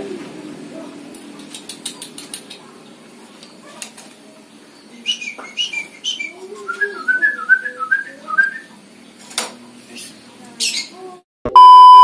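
Caged yellow-vented bulbul (trucukan) calling in short chirps, then a quick run of repeated notes, with a few scattered clicks. Near the end a loud, steady electronic beep tone lasting about a second.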